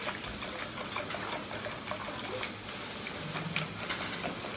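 Wire whisk beating a runny egg mixture in a bowl: a steady wet sloshing with many light clicks of the wires against the bowl.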